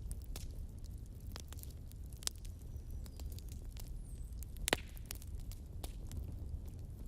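Wood fire burning in a fireplace: irregular crackles and pops from the burning logs over a low steady rumble of flames, with one louder pop about two-thirds of the way through.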